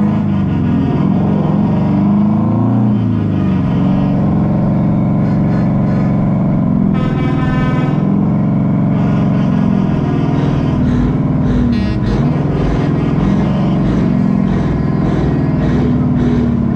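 Heavy diesel truck engine running under way at low speed, its pitch rising and falling with the revs. A brief higher-pitched tone joins about seven seconds in.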